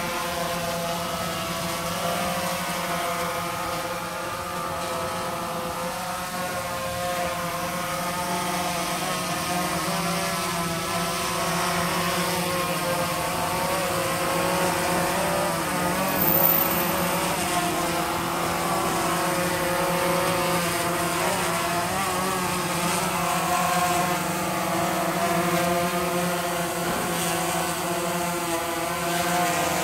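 Quadcopter drone's four motors and propellers whining steadily in a hover, the pitch drifting a little as it holds and shifts position. This is a test flight after a repair, and the drone is flying normally.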